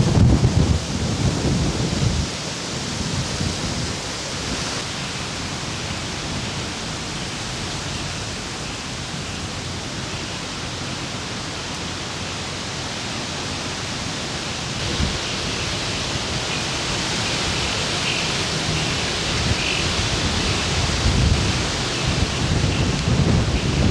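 Tropical-storm wind gusting through trees with rain, a steady rushing hiss; heavy gusts buffet the microphone in low rumbles during the first two seconds and again near the end.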